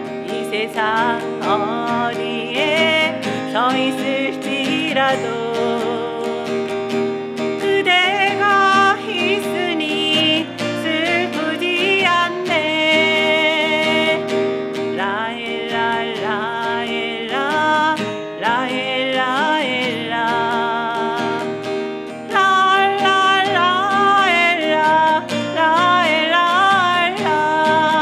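Acoustic guitar playing with a voice singing the melody over it.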